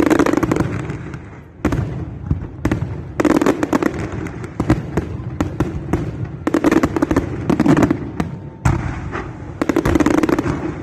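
Fireworks going off in dense crackling volleys of rapid sharp pops, with brief lulls between bursts.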